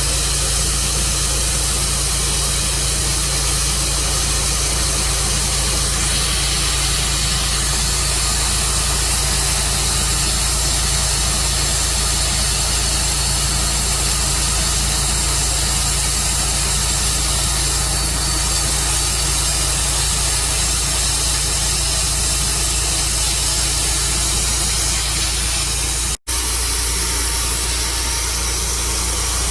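Tru Cut sawmill running steadily with a loud, even noise. The sound drops out for an instant near the end.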